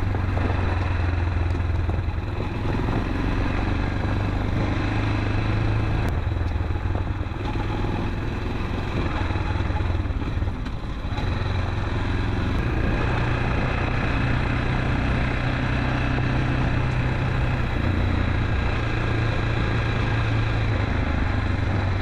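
Motorcycle engine running steadily while riding along a road, with road and wind noise; the engine note steps up and down a few times.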